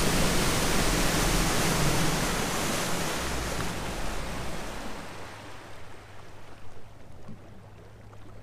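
Rushing wind and water from a boat running fast across the lake, with a low engine rumble. The rush fades gradually as the boat slows, the rumble drops out about halfway through, and a steady low engine hum carries on.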